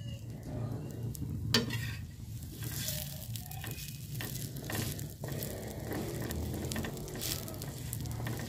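Egg-coated burger bun sizzling in oil on a flat steel griddle (tawa) as a slotted metal spatula presses and scrapes it, with scattered clicks of the spatula on the metal and one sharp clank about one and a half seconds in.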